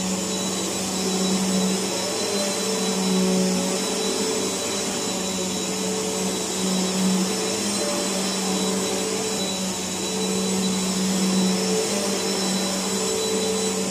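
Bissell PowerForce Helix upright vacuum cleaner running while it is pushed back and forth over carpet. Its motor gives a steady hum with a thin high whine above it.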